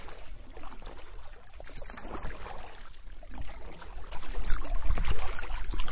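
Water splashing and trickling around an inflatable canoe as it is paddled, with repeated paddle dips and a steady low wind rumble on the microphone from a light headwind. The splashing grows louder about four seconds in.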